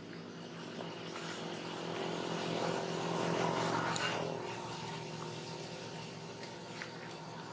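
Steady motor hum that grows louder about two to four seconds in and then eases off again.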